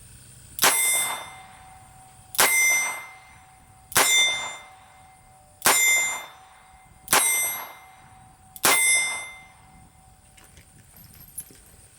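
Six shots from a Smith & Wesson Model 17 .22 LR target revolver, fired slow and evenly about one and a half seconds apart. Each crack is followed by a short ringing tone that dies away within half a second.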